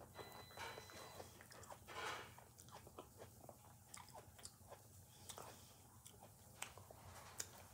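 Close-up chewing and mouth sounds of a person eating a burger and fries: irregular soft wet smacks and small crunches, several a second.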